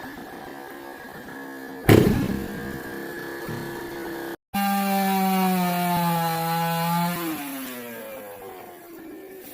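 Chainsaw running, with a sharp knock about two seconds in. After a brief break in the sound it runs at high revs, then the revs fall away near the end as the throttle is let off.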